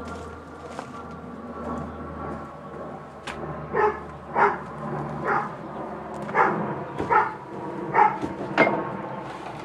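A dog barking repeatedly, about seven short barks starting about four seconds in, over a steady background hum.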